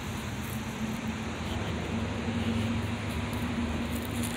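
Steady hum of a running engine, its pitch stepping up slightly about two seconds in, over a steady rush of outdoor noise.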